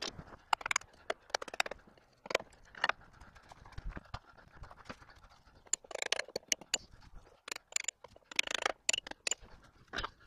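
Hammer striking a steel punch to drive wooden spacer blocks out of a treated-lumber carry-all frame: sharp, irregular knocks coming in several clusters.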